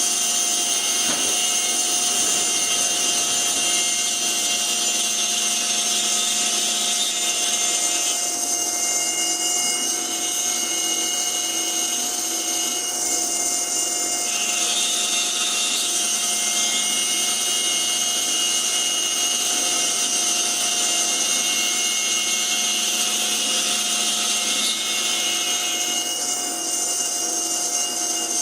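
CNC router spindle running steadily at a high whine while milling a small wooden insert. The cutting noise changes character a few times as the bit's engagement shifts.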